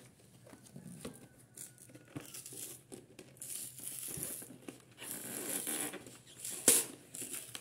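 A cardboard trading-card collection box being prised open by hand: its seal tearing and flaps scraping in short rustling bursts, with one sharp snap near the end.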